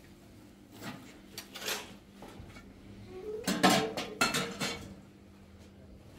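Metal cooking pots and kitchenware clattering as they are handled and packed into a plastic crate: a few separate knocks, then a louder run of clanks with brief metallic ringing about halfway through.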